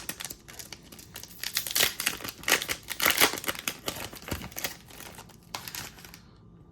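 Trading card pack wrapper crinkling and crackling as it is handled and torn open, with sharp clicky rustles; the crackling stops about six seconds in.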